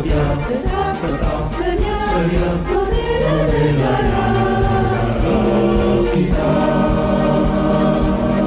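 Choir singing a patriotic song, closing on a long held chord from about six seconds in.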